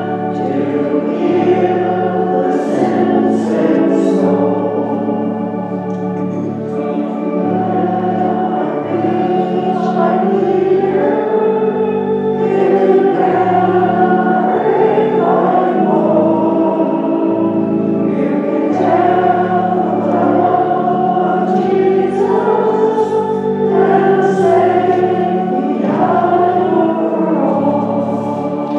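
A hymn sung by voices with organ accompaniment, the organ holding sustained chords beneath the singing.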